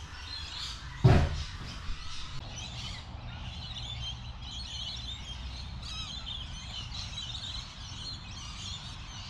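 Several birds chirping and calling over a low steady rumble, with a single sharp thump about a second in.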